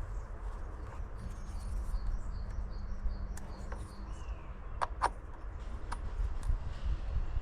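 Outdoor background with a low rumble, a bird chirping repeatedly in a quick even series for about two seconds, and a few sharp clicks about five seconds in.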